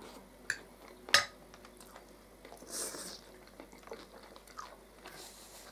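Cutlery clinking against plates and quiet chewing of beetroot vinaigrette salad, with a sharp clink about a second in.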